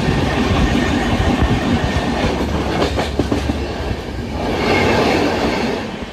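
Train running along the track, heard from on board: a steady rumble with wheels clacking over rail joints. It swells for a moment about four and a half seconds in.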